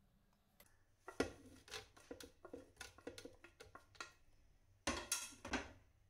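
A spoon scraping and tapping against a plate as pitted, chopped dates are pushed off it into a mixer jar: a string of light clicks and taps, with a couple of louder scrapes near the end.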